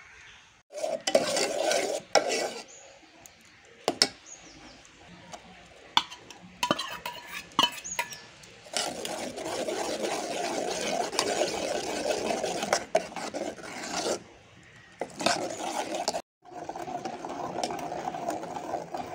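Steel ladle stirring and scraping a thick mixture in an aluminium pot, in spells of a few seconds, with a few sharp metal-on-metal clinks between them.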